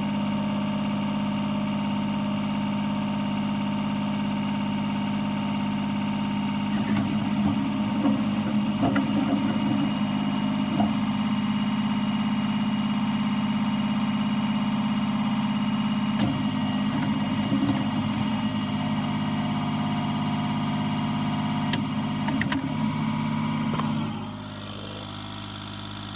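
John Deere 770 compact tractor's three-cylinder diesel engine running steadily, with several stretches of irregular rattling over the engine note. Near the end the engine drops back to a quieter, lower note.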